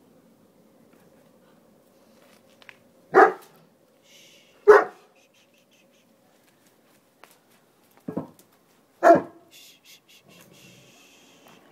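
Newfoundland dog barking: four sharp single barks, two about a second and a half apart, then after a pause of about three seconds two more about a second apart, the last of these the loudest.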